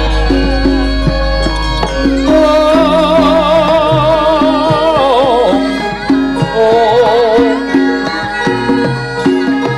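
Javanese gamelan playing with a sinden, a female singer, holding a long ornamented line with heavy vibrato over the repeated strokes of the metallophones. A deep low tone dies away over the first few seconds.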